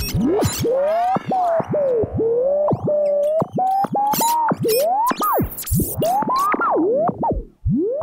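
An old radio being tuned across the dial: a whistling tone that glides up and down and keeps breaking off, with clicks and a brief burst of hiss between stations.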